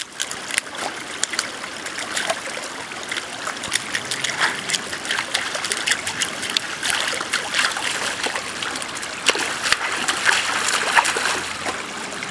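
A German shepherd pawing and splashing in a shallow, rocky creek, with the creek's water trickling under it. Irregular sharp splashes come through the steady running-water hiss, busiest near the end.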